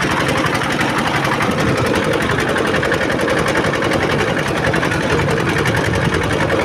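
An engine running loud and steady with a rapid, even clatter.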